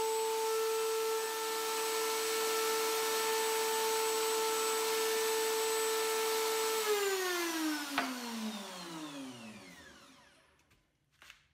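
Router with a 1/4-inch shank bit running steadily in a router table, a high motor whine. About seven seconds in it is switched off and the whine falls in pitch as the bit spins down, with a sharp click about a second later.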